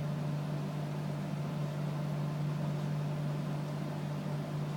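Steady low hum with an even hiss over it, with no distinct knocks or clicks.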